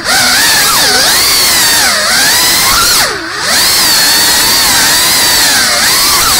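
FPV quadcopter's brushless motors whining, the pitch swooping up and down as the throttle changes. The whine dips briefly right at the start and again about three seconds in.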